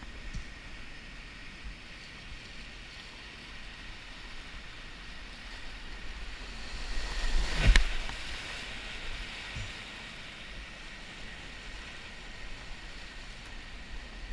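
Whitewater rapids rushing steadily around a kayak. About halfway through, one loud splash as the kayak's bow plunges through a drop into foaming water.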